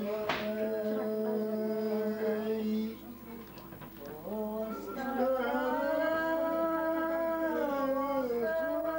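One voice singing a slow song in long held notes, with a short pause about three seconds in before the next phrase.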